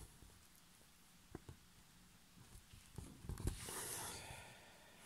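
Faint cross-stitching sounds: a few soft taps of the needle, then a short rasp of thread drawn through the fabric a little after three seconds in.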